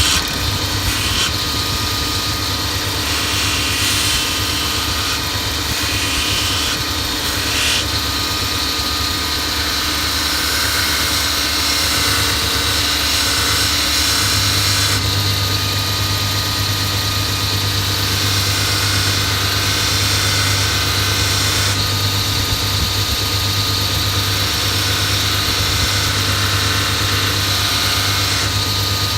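Bench grinder with a Multitool belt grinder attachment running steadily, a fine surface-conditioning belt hissing as a hoof knife is held lightly against it for sharpening. The tone of the running belt shifts every several seconds as the blade is moved and repositioned.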